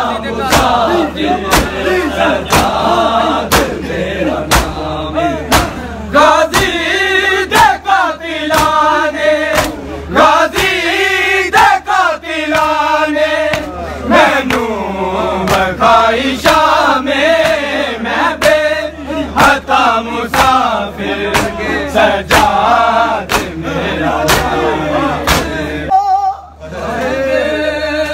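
A crowd of men chanting a noha, a Shia lament, together, kept in time by the regular slaps of matam, hands striking bare chests in a steady beat. The chanting dips briefly near the end.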